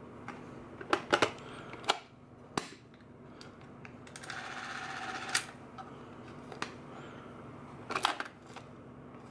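Plastic and metal clicks and scraping as a Super 8 film cartridge is pushed into the film compartment of a Zenit Quarz 1x8S-2 cine camera. A few sharp clicks come in the first three seconds, a sliding rasp ending in a click comes in the middle, and a quick cluster of clicks comes near the end.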